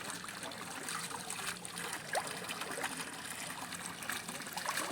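Running water trickling and splashing steadily, with small droplet plinks scattered through it.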